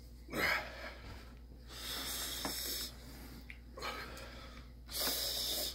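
A man breathing hard, hissing air in and out through his mouth in several loud breaths, with a short falling vocal sound at the start. It is a reaction to the mouth burn from an extremely hot chili chocolate bar.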